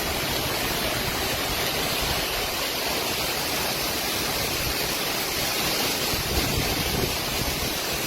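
Heavy rain falling steadily in a storm, an even, unbroken hiss.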